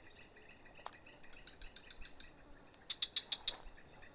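Insects droning steadily at a high pitch, with repeated short chirps over it and a quick run of ticks about three seconds in.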